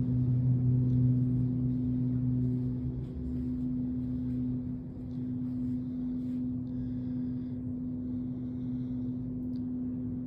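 A steady low hum made of a few even pitches, with the lowest pitch fading a few seconds in and faint high tones coming and going near the middle.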